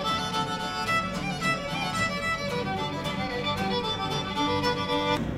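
Fiddle music, a run of short notes played one after another, cut off abruptly near the end.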